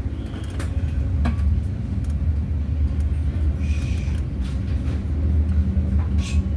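Steady low rumble of a moving passenger train, heard from inside the car.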